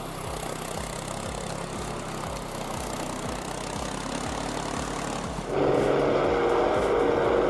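Vehicle engine running steadily with a regular low pulsing. About five and a half seconds in, a much louder sound cuts in abruptly.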